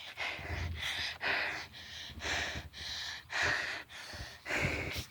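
A person breathing heavily and fast close to the microphone: a run of short, hissing in-and-out breaths, about two a second.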